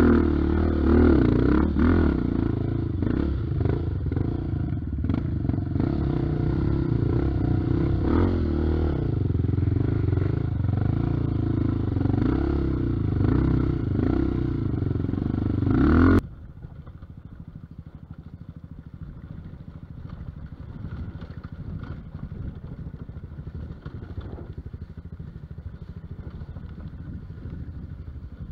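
Single-cylinder four-stroke engine of a Honda Tornado trail bike, bored to 300 cc, running hard under load on a rough climb, its pitch wavering with the throttle, with clatter from the bike over rough ground. About 16 seconds in, the sound drops suddenly to a much quieter low running rumble.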